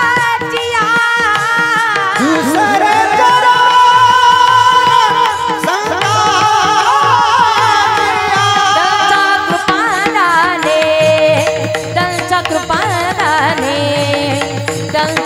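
Marathi kirtan devotional music: an ornamented melodic line that bends and wavers, sung without clear words, over sustained accompanying tones and a hand-drum rhythm.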